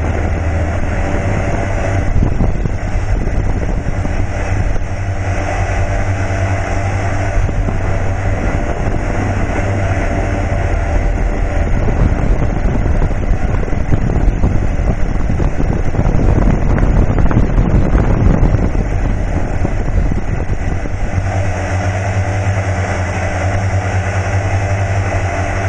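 Steady drone of the T580 model aircraft's motor and rotor, picked up by its onboard camera, with wind rushing over the microphone. The rush turns rougher and gustier through the middle stretch, then settles back to the even hum.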